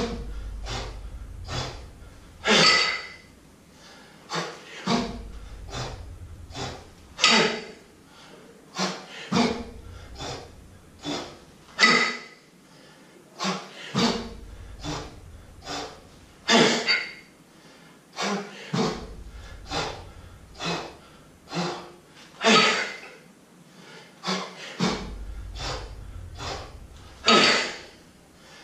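Hard, rhythmic breathing of a man jerking a pair of kettlebells overhead: quick short breaths every half second or so, with a louder forceful exhale about every five seconds as each rep is driven up.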